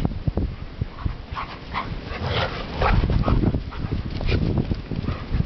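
Labrador retrievers playing, giving short whines and yips over irregular low thumps.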